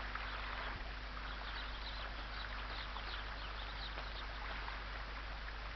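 Faint, scattered bird chirps over a steady background hiss and low hum.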